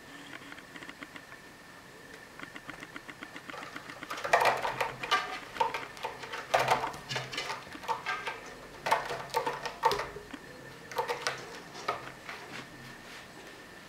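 A cat's claws scratching and gripping a sisal-rope scratching post as it stands up against it and climbs. The scratching comes in irregular clusters from about four seconds in, with only light ticking before that.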